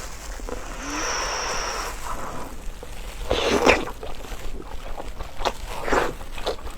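Close-miked eating mouth sounds: irregular wet chewing and smacking, with the loudest bursts about three and a half seconds in and again near six seconds.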